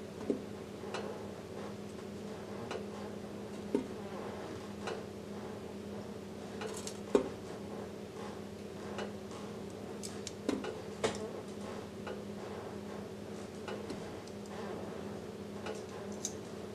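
Metal kitchen tongs clicking and hard frozen cornmeal fritters tapping down into an air fryer's perforated basket, one at a time: a sharp click every few seconds over a steady low hum.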